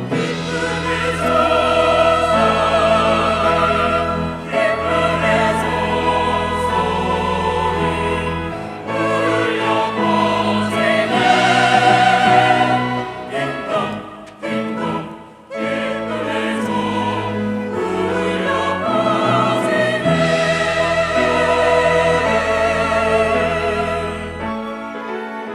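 Church choir singing an anthem over instrumental accompaniment with long-held deep bass notes. The voices sing with vibrato and break off briefly about fourteen seconds in before going on.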